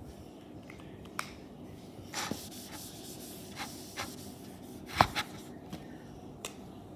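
Handling noise of rubbing against paper, with a few scattered light clicks and knocks; the sharpest knock comes about five seconds in.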